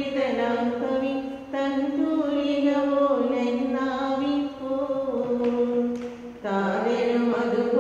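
Voices singing a slow Syro-Malabar liturgical chant in Malayalam, with long held notes and short breaks about four and a half and six seconds in.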